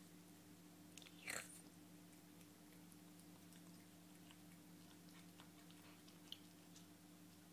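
Near silence: a faint steady hum with a few soft ticks, and one brief rustling noise just over a second in.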